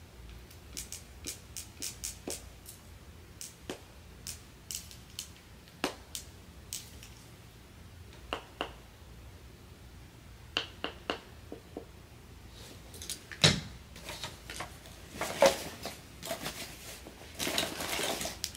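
Light scattered clicks and taps from a flat iron being handled while curling hair, with a sharper knock about two-thirds of the way through and rustling toward the end.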